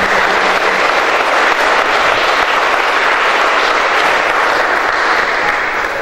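Audience applauding, many hands clapping steadily, dying down near the end.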